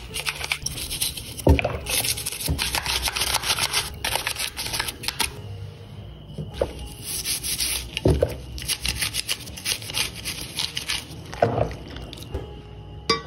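Toothbrush scrubbing wet, soapy diecast model parts: rapid brushing strokes with a pause partway through, and a few dull knocks as the parts are handled.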